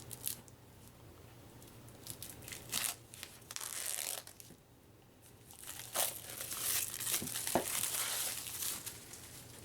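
Plastic packaging crinkling and rustling as it is handled and opened, in two spells with a short lull between.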